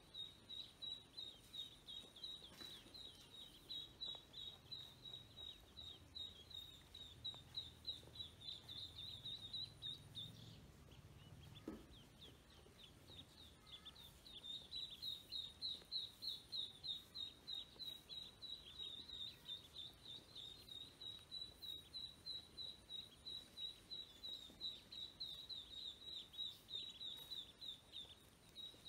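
Ducklings peeping: a fast, regular run of short, high, slightly falling peeps, about three a second, that stops for a few seconds around the middle and then starts again.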